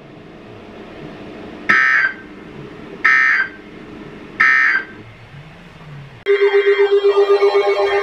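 Weather radio sending the three short EAS end-of-message data bursts, about 1.4 s apart, that close a tornado warning broadcast, over a faint hiss. About six seconds in, a loud pulsing electronic sound with warbling tones cuts in abruptly.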